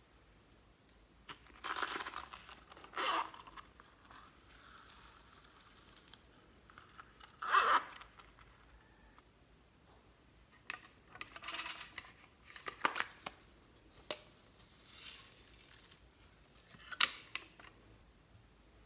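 Hands handling small plastic novelty cases: a string of short scrapes, clicks and rustles, the sharpest about seven and a half seconds in.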